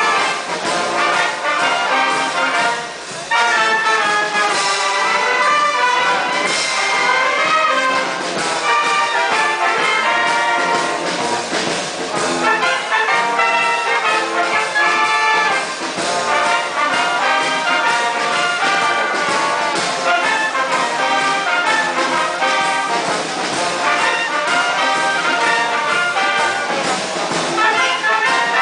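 A brass band playing, loud and continuous, briefly quieter about three seconds in.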